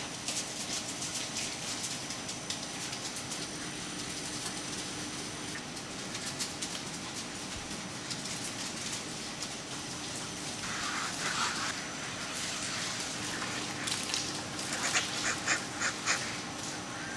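Ducks in individual wire cages quacking: a short cluster of calls about eleven seconds in and a quick run of short quacks near the end. Underneath is the steady hum of the shed's ventilation fans and scattered light clicks.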